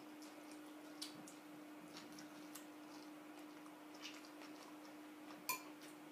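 Quiet eating sounds: faint chewing and small mouth clicks over a steady low hum, with a sharp clink about five and a half seconds in as a metal spoon touches a glass bowl.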